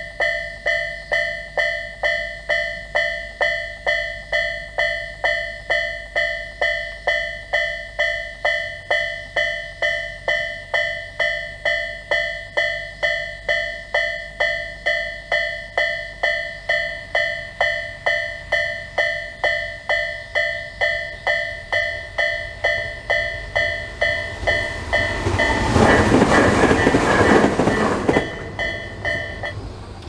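Japanese level-crossing alarm in the Tobu 'sound A' tone, dinging steadily a little under twice a second while the barriers are down. About 24 seconds in, a Tobu 500 series limited express train rushes through for a few seconds, and this is the loudest sound. The alarm stops just before the end as the crossing clears.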